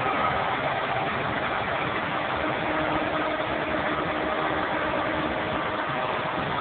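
Engine of a piling rig running steadily: a constant mechanical drone with no impacts or changes.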